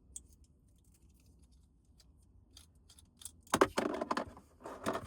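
Small plastic clicks and rattles of a magnetic car phone mount being loosened and handled, with two louder bursts of rattling about three and a half and five seconds in.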